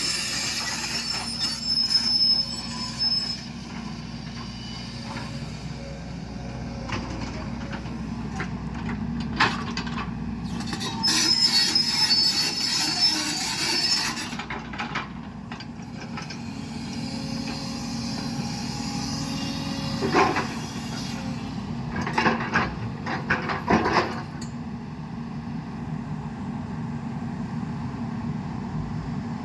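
JCB 220LX tracked excavator working: its diesel engine runs steadily, with high metallic squeals near the start and again about halfway, and a few sharp clanks later on.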